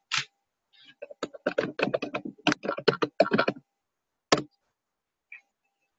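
Typing on a computer keyboard: a quick run of keystrokes lasting about two and a half seconds as a search word is typed in, then a single click about a second later.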